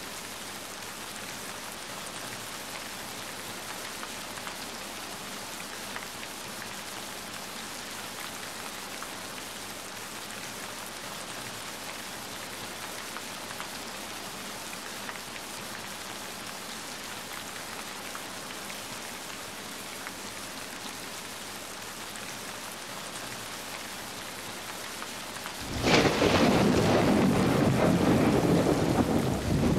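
Steady rain falling. Near the end a loud clap of thunder breaks in suddenly and rumbles on.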